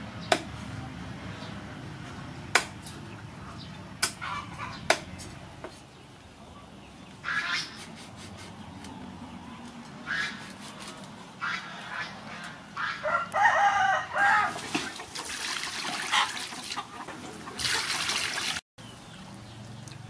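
Cleaver chopping a long fish on a wooden chopping block: four sharp chops in the first five seconds. Chickens clucking and a rooster crowing around the middle, then water splashing as fish pieces are handled in a bowl near the end.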